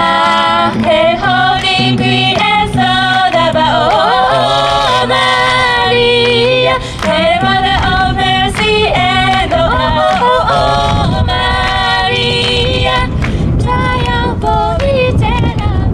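A cappella vocal group, male and female voices without instruments, singing in close harmony into microphones through a PA speaker.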